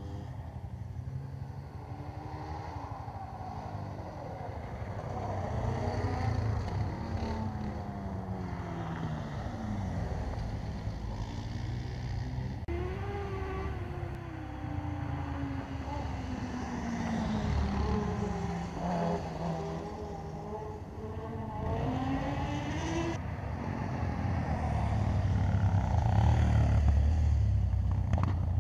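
Several quad bike engines revving up and down as the ATVs lap the track, their pitch repeatedly rising and falling, louder about six seconds in and again near the end.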